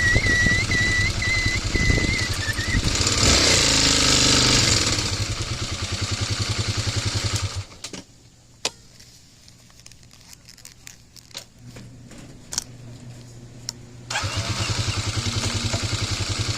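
A high, slightly wavering squeal from the vehicle's brakes that dies away about two and a half seconds in, followed by a hiss. Then a vehicle engine idling with an even pulse that cuts off suddenly about seven and a half seconds in, leaving a few faint clicks, before the engine starts again and idles about fourteen seconds in.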